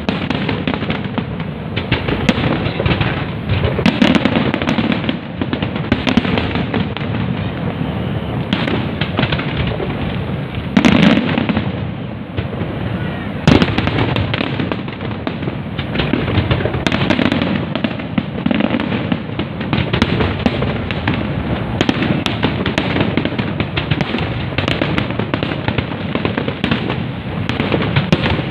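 Aerial fireworks display going off without pause: a dense, continuous crackle of bursts with deeper booms mixed in, a heavy burst about eleven seconds in and a sharp crack soon after.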